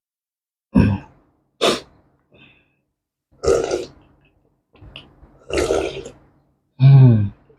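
A person noisily sipping and slurping soup in about five separate bursts, the last one near the end ending in a low voiced throat sound.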